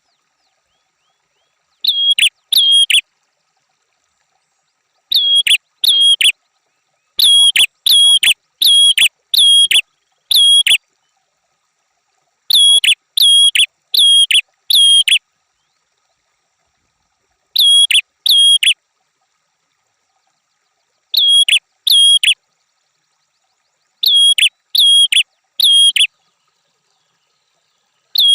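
Red-headed prenjak songbird calling: identical short, sharp whistled notes, each dipping and hooking up in pitch, given in quick runs of two to six with pauses of a second or more between runs.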